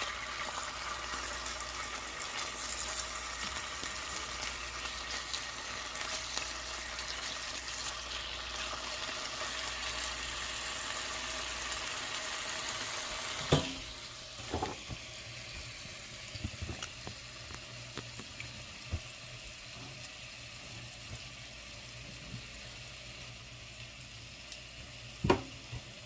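Chicken breasts sizzling as they brown in a frying pan. A sharp knock about halfway through, after which the sizzle is quieter, a few light knocks, and another sharp click near the end.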